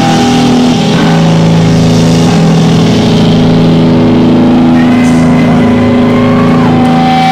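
Distorted electric guitars and bass of a live hardcore punk band holding a loud, droning sustained chord as a song rings out, with a thin feedback whine creeping in near the end.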